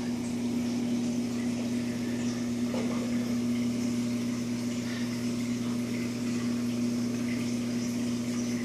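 Steady low electric hum of reef aquarium pumps running, with a light hiss of moving water.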